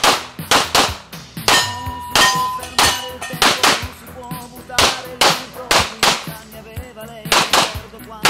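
Pistol fired in rapid succession, about a dozen sharp shots, some in quick pairs about half a second apart.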